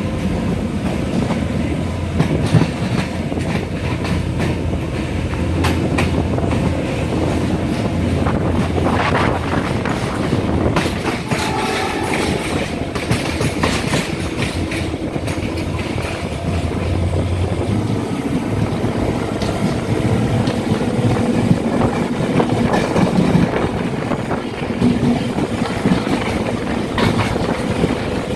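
Diesel multiple-unit passenger train running and gathering speed, heard at an open coach window: a steady low engine drone under the clickety-clack of wheels over rail joints, with scattered sharp knocks.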